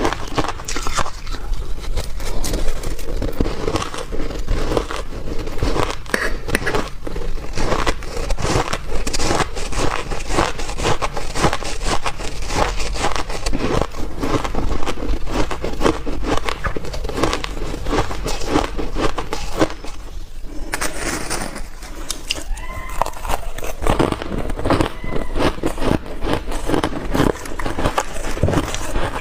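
Close-miked biting and chewing of soft freezer-frost ice, a dense run of crunching and crackling with a brief lull about twenty seconds in.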